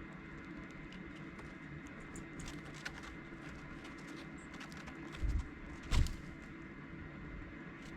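Dark-eyed juncos: scattered light ticks and clicks, with a couple of faint, brief high chip notes, over a steady background hum. Two dull thumps about five and six seconds in are the loudest sounds.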